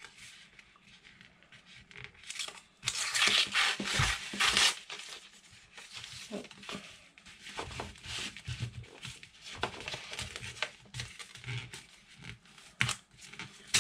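Paper label being peeled and torn off a roll of vintage wallpaper, with paper rustling and crinkling as the roll is handled. The loudest tearing comes about three to five seconds in, followed by lighter rustles and a few soft knocks.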